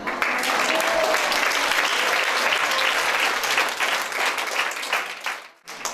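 A group of children and adults applauding, many hands clapping at once. It starts suddenly, thins out near the end and stops.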